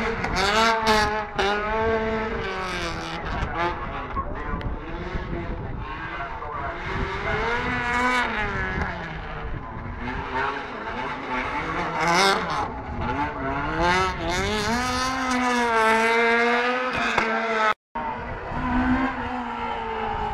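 Rally car engines revving hard, the pitch climbing and dropping every second or two as the drivers accelerate, shift and brake through tight turns, with tyres squealing. The sound cuts out briefly near the end.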